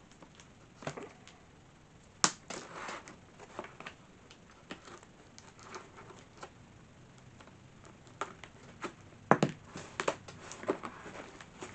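A cardboard box being cut open with scissors: irregular clicks and snips with rustling of tape and cardboard, and two sharper snaps about two and nine seconds in.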